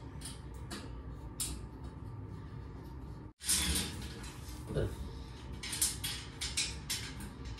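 Light clicks, taps and knocks of white metal bed-frame rails being handled and fitted together by hand. The clicks come more often in the second half.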